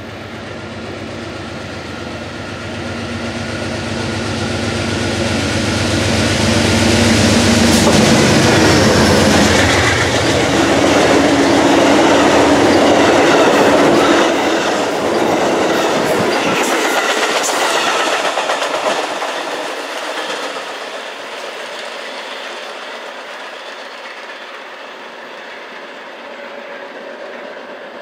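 Amtrak train passing at speed behind a diesel locomotive. The engine grows louder as it approaches and its pitch drops as it goes by, about ten seconds in. The passenger cars' wheels then click over the rail joints, and the train fades away after about twenty seconds.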